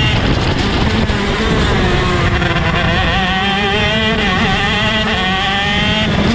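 Two-stroke shifter kart engine heard onboard, its revs dropping at the start as it slows for a corner, then climbing again under acceleration, with a sudden change in note near the end.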